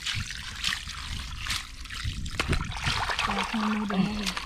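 Water poured from a cooking pot, splashing and trickling over a heap of swimming crabs as they are rinsed clean in shallow water. A low voice comes in near the end.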